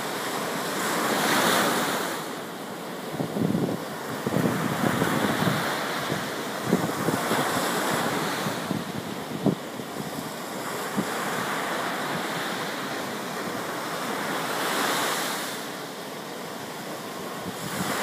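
Surf: waves breaking and washing up a sandy beach, the rush of water swelling and easing every few seconds as each wave comes in.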